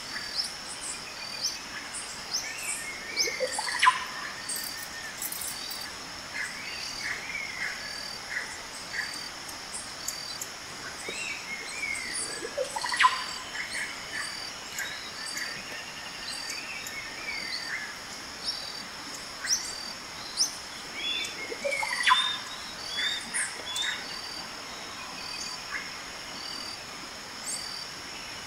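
Birds calling and singing, with an evenly repeating high chirp throughout. A loud upward-sweeping call comes three times, about nine seconds apart.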